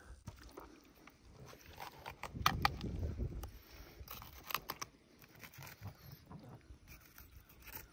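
Faint clicks and scrapes of a knife and hands working a catfish carcass on a plastic cooler lid, with a low muffled rumble about two to three and a half seconds in.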